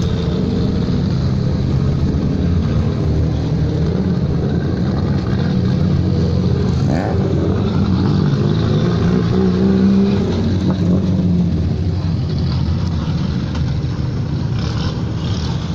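Race-prepared hillclimb cars, among them an E36 BMW 3 Series, driving slowly past one after another, their engines running loud at low revs with the pitch rising and falling as they pull away.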